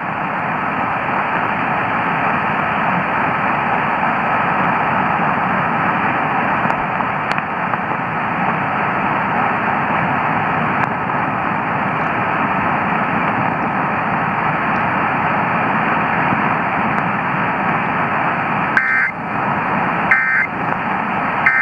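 Static and hiss from a weak, distant AM radio signal, with a faint steady whistle running under it. Near the end come three short buzzy data bursts about a second apart: the Emergency Alert System end-of-message code closing the test.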